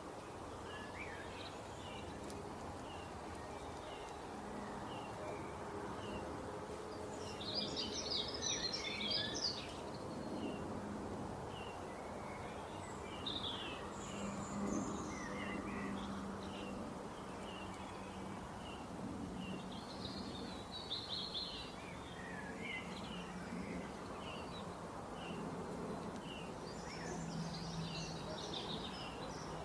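Small birds chirping again and again, with denser bursts of song twice, over a steady low hum.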